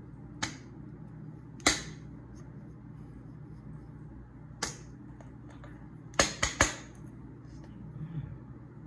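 Sharp clicks: three single ones spaced a second or more apart, then a quick run of three, over a steady low hum.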